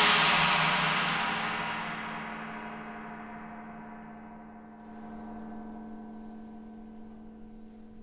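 Orchestral gong (tam-tam) ringing out after a loud stroke, a dense shimmer of tones slowly dying away, with one low tone lingering longest.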